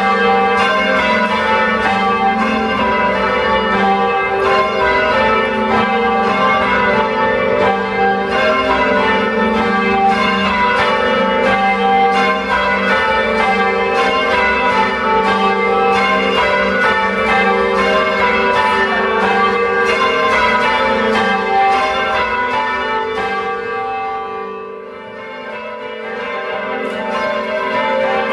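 Ring of four church bells cast by Taylor of Loughborough in 1922, tenor in G, being rung in changes, one stroke following another in a steady rhythm. The ringing dips in loudness briefly about three-quarters of the way through, then picks up again.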